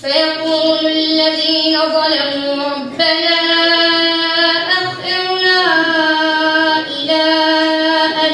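A boy reciting the Quran in melodic tajweed style into a microphone, drawing out long held notes with slow slides in pitch. He pauses briefly for breath about three seconds and five seconds in.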